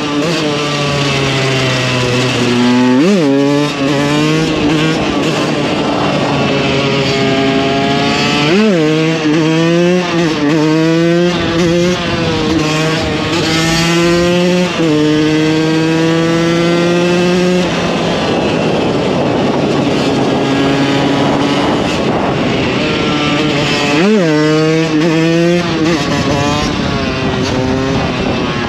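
KTM 125 EXC two-stroke single-cylinder engine being ridden hard, its note climbing and falling as the bike accelerates and shifts. There are sharp rev spikes about three seconds in, near nine seconds and near the end, and the note turns rough and noisy for a few seconds past the middle.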